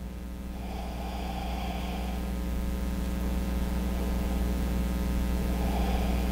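Steady low mechanical hum with a few fainter pitched lines above it, growing gradually louder. Two soft hisses come through, about a second in and near the end.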